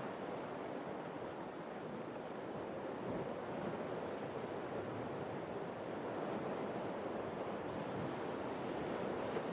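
Sea surf washing and breaking against the rocks of a rocky shore, a steady rushing that swells slightly, with some wind buffeting the microphone.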